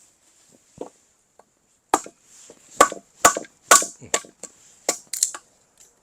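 Firewood being split with an axe: scrap construction timber cracking along the grain under a quick run of sharp knocks, about two a second, after a single faint knock.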